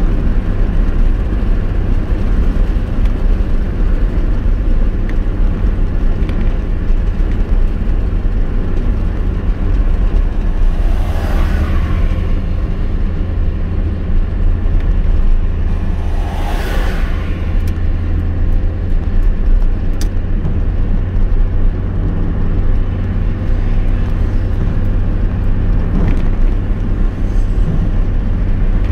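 Steady low road and engine rumble heard inside a moving car's cabin at highway speed. Two brief whooshes rise above it, the first about eleven seconds in and the second about five seconds later.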